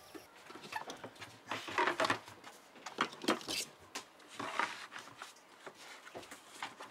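Plastic ice packs and small glass vaccine vials knocking and rustling as they are packed by hand into a vaccine carrier: scattered light clicks and clatters with a few short rustles.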